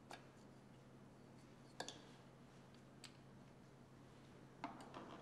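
A few faint, sharp clicks of plastic engine-bay parts being handled by gloved hands, spaced a second or so apart over a low steady hum.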